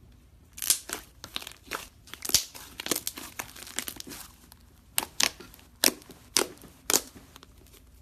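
Slime being pressed and stretched by hand, giving an irregular run of sharp pops and crackles that starts about half a second in.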